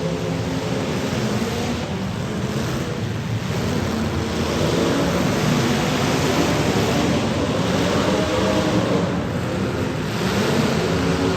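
Demolition derby car engines running and revving together, with wavering engine notes over a steady noisy rush.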